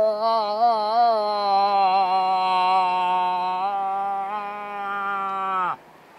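A hunter's vocal cow moose call through cupped hands: one long, wavering moan that falls in pitch and cuts off about five and a half seconds in.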